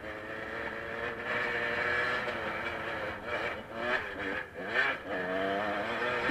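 Dirt bike engine heard from the rider's helmet camera, running hard with its pitch rising and falling as the throttle is worked. The engine eases off briefly twice midway, then climbs again and holds.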